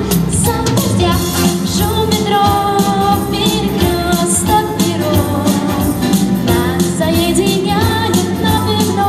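A girl singing a song into a microphone, amplified over instrumental accompaniment with a steady beat.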